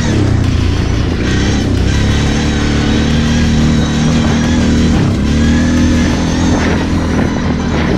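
Background music with guitar over a Kawasaki KFX 700 V-Force quad's V-twin engine running under way, its pitch dropping and climbing again twice.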